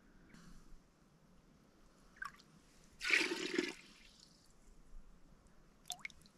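Seawater being scooped with an enamel mug from a seep hole dug in wet sand: faint splashing and trickling, with one louder splash about three seconds in.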